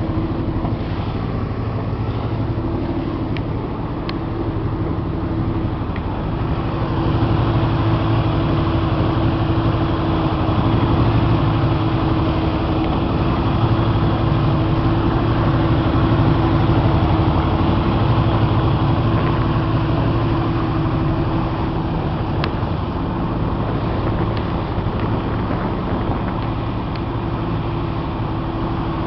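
Motorboat engine running steadily with a constant rushing noise, a little louder for about ten seconds in the middle.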